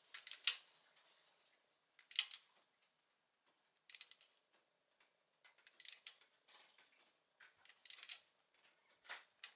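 Brief metallic clicks and clinks from a hand tool on the rocker arm adjusting nuts of a small-block Chevy 400, as the nuts are run down to zero lash during valve adjustment. The clicks come in short clusters about every two seconds.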